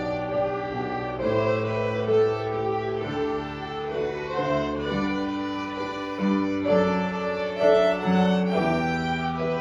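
Junior violin ensemble playing in unison, a melody of held bowed notes changing about once a second over a lower bass line.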